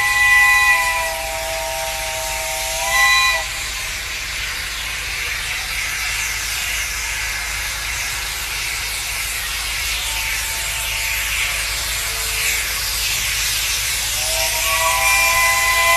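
Pacific steam locomotive's chime whistle sounding a three-note chord, held for about three seconds and ending with a short upward blip, then a steady hiss of steam as the engine approaches; the whistle sounds again near the end.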